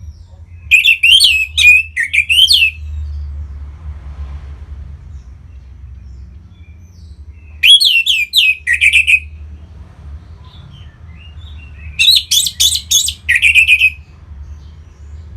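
Orange-headed thrush singing three bursts of rapid, warbling song, each about two seconds long and several seconds apart, over a steady low hum.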